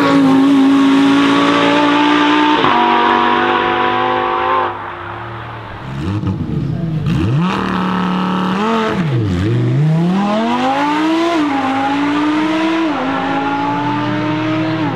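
Lamborghini Huracán V10 at full throttle, its pitch dropping at an upshift about two and a half seconds in. After a break, a second Huracán revs with the pitch swooping down and up, then pulls away hard about nine seconds in, the pitch climbing through two upshifts.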